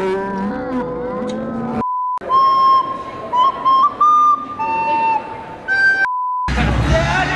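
A green plastic recorder played through the nose: a few shrill, slightly wavering notes, mostly one pitch with a lower note and a higher note near the end. The notes are framed by a short, steady electronic beep tone just before and just after.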